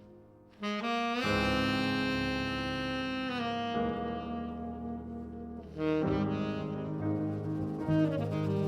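Jazz ballad: a tenor saxophone plays long, sustained notes, entering after a brief pause, with a fuller accompaniment joining underneath in the second half.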